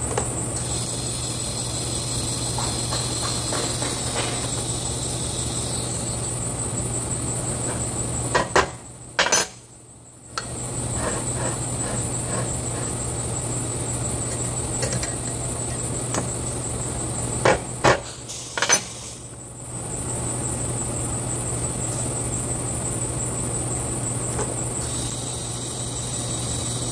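TIG welding tacks on a steel sprocket: the arc runs with a high, even buzz for about five seconds near the start and again from near the end. Between tacks come a few sharp metal hammer taps, in two groups in the middle, over a constant shop-machine hum.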